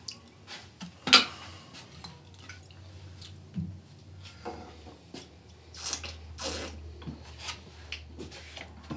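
A glass beer bottle is handled and set down on a table with a dull knock about three and a half seconds in. Small clicks and clinks come before it, the sharpest about a second in, and short drinking sounds follow, over a low hum.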